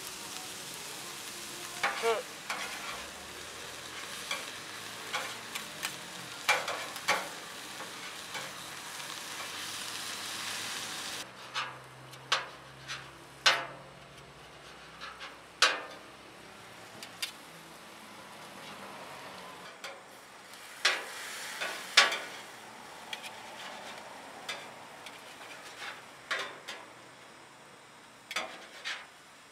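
Food sizzling on a flat-top steel griddle while a metal spatula scrapes and clacks against the plate, chopping and turning sliced onions and then small pieces of beef. The sizzle hiss is strong for the first third, then drops abruptly to a quieter sizzle, with sharp spatula strikes scattered throughout.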